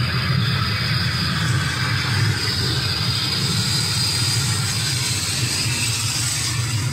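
Loud space-vortex sound effect played over the haunt's sound system: a steady, heavy low rumble with a hiss above it.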